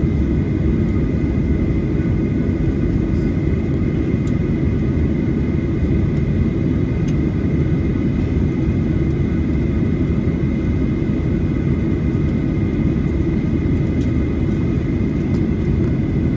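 Steady cabin noise aboard a Boeing 737-900ER airliner: an even low rumble of engines and airflow with a faint high whine, unchanging throughout, with a few faint ticks.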